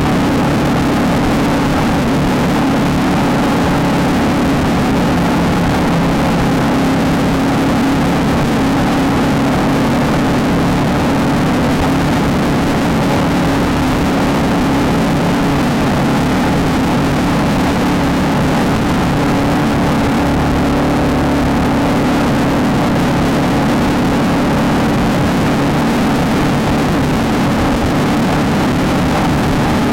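Engine of a VW Beetle-based desert race car running hard at a steady speed, loud and unchanging, over a broad rushing noise from the moving vehicle.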